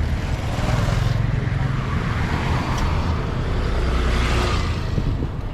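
Tuk-tuk's small engine running with a low drone while on the move, with road and traffic noise around it.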